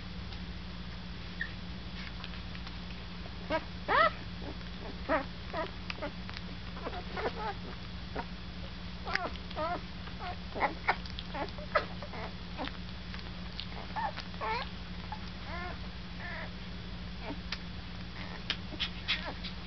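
Week-old German Shepherd puppies making short, high squeaks and whimpers again and again, over a steady low hum, with a few soft clicks near the end.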